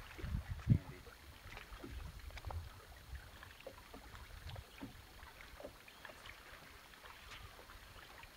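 Small waves lapping and slapping against the hull of a fishing boat, with scattered small knocks and a low wind rumble on the microphone. A louder low thump comes in the first second.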